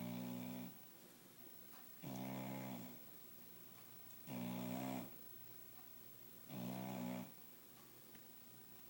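A sleeping beagle snoring: short, pitched snores under a second long, one about every two seconds, four in all.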